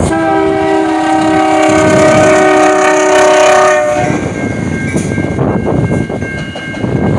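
Canadian National diesel locomotive running alone with no cars, sounding its horn in one long chord for about four seconds. The horn cuts off about four seconds in, leaving the sound of the locomotive's engine and wheels as it passes over the crossing.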